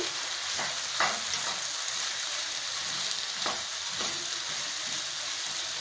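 Chopped vegetables sizzling steadily in oil in a wok while being stirred with a slotted spoon. The spoon scrapes against the pan a few times.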